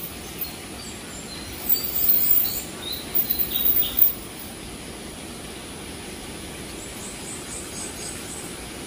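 Outdoor yard ambience with a steady background hiss and short, high bird chirps. A cluster of louder, sharp rattling bursts comes about two to four seconds in.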